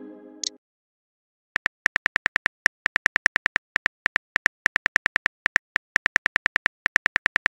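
Phone keyboard typing sound effect: a fast, even run of short clicks, about seven a second, as a text message is typed out. It is preceded by a fading tone that stops about half a second in, then a brief silence.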